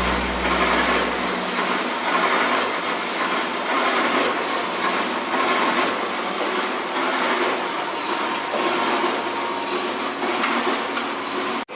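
Coffee beans tumbling in a roasting machine's rotating drum: a steady rattling rush that swells about once a second. A low hum dies away in the first second or so.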